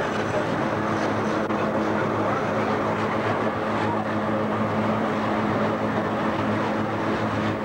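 Electric rack-railway car running uphill, heard from inside the carriage: a steady hum with even running noise throughout.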